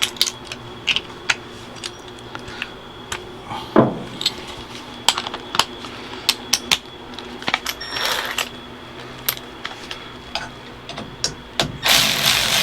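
Scattered metallic clicks and clinks of hand tools and bolts being worked while the steering wheel hub's screws are started. Near the end a loud steady noise sets in and keeps going.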